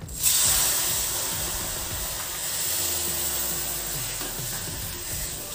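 Milk poured into a hot kadhai of ghee-roasted vermicelli, setting off a sudden loud sizzle about a quarter second in that slowly fades to a bubbling hiss.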